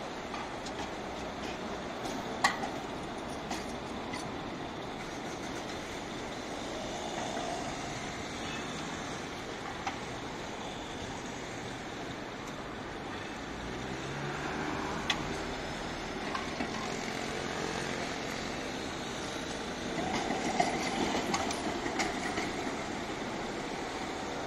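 Red articulated Tatra KT4 trams running on the rails through a street junction, mixed with steady road traffic. A few sharp clicks stand out, and the noise grows busier and louder for a couple of seconds near the end as cars pass.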